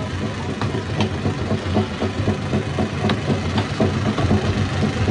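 Heavy diesel machinery at a rock-crushing site, running steadily with a low hum, with a few sharp knocks scattered through it.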